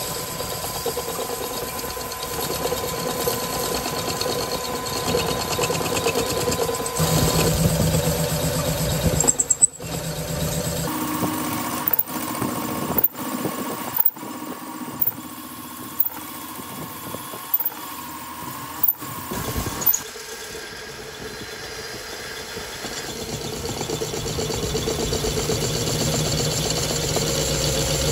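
Metal lathe running and turning a steel truck axle spindle, the cutting tool shearing off long chips. The machine noise is steady, and in the middle stretch a series of sharp clicks comes roughly once a second.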